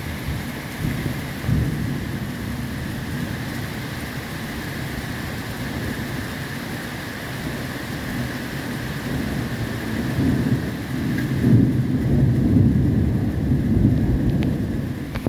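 Thunder rumbling low and rolling under steady rain, the rumble swelling louder about two-thirds of the way through.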